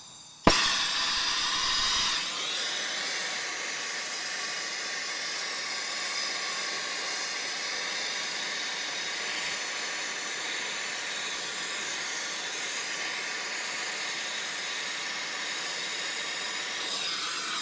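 Air-acetylene brazing torch lit with a sharp pop about half a second in, then burning with a steady hiss as it heats a copper refrigerant line joint. It is louder for the first couple of seconds before settling.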